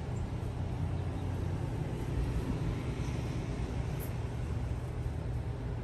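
Steady low background hum and rumble over a constant hiss, with one faint click about four seconds in.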